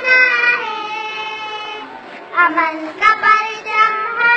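A child singing a Pakistani national song, holding long notes, with a short pause about two seconds in before the next phrase.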